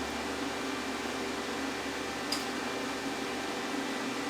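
Plasma cutter switched on and idling, its cooling fan giving a steady whir and hum, with a faint click about two seconds in.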